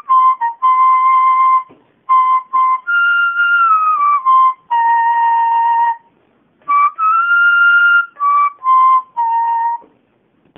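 A solo flute plays a slow melody of held and gliding notes in short phrases separated by brief pauses, ending with a low held note just before the end.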